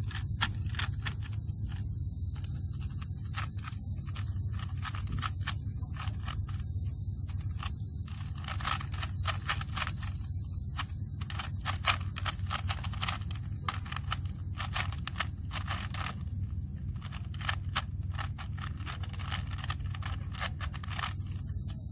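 Rubik's cube being turned fast during a timed solve: a quick, irregular run of plastic clicks and clacks as the layers twist, busiest in the middle. A steady low hum and a high hiss lie underneath.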